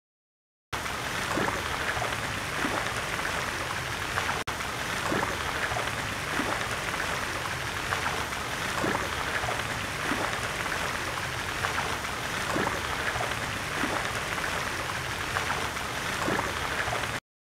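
Steady rushing, rain-like noise with a faint soft pulse about every second and a quarter. It starts and stops abruptly, with a momentary drop just after four seconds in.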